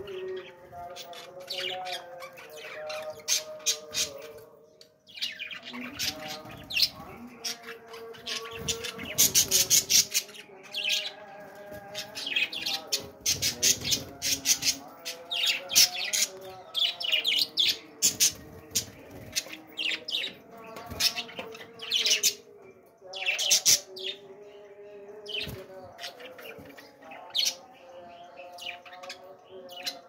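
A flock of budgerigars chattering, with many quick sharp chirps and squawks that come thickest in two busy spells in the middle.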